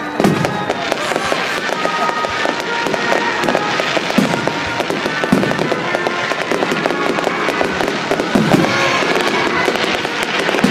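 Fireworks display: dense crackling and popping from aerial shells and ground fountains, with a few heavier booms spread through it. Music plays alongside.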